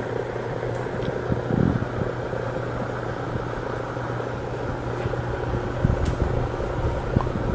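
Coin-operated electric chair machine running, a steady electric hum and rumble with a few light knocks.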